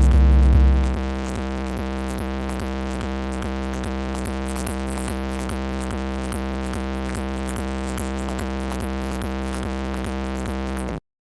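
Electronic dance music at high volume, a deep held bass note under a steady repeating synth pulse. It drops in level about a second in and cuts off abruptly just before the end.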